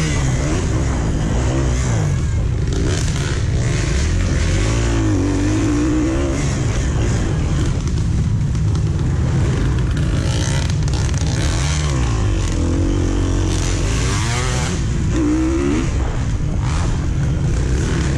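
Dirt bike engine heard from on board, revving up and down again and again as the rider accelerates and backs off through the turns, under a steady rush of noise.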